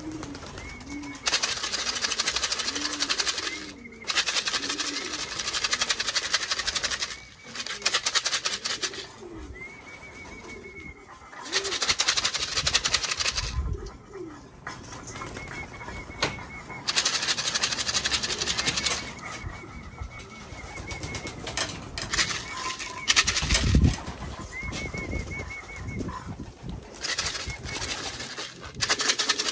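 Racing pigeons cooing, low wavering coos in short runs, mostly in the first half. Stretches of rushing noise come and go, and there are a couple of low thumps.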